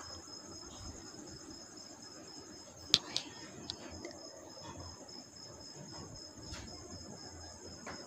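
Faint, steady high chirring of crickets, with a few sharp clicks from scissors trimming cloth; the loudest click comes about three seconds in.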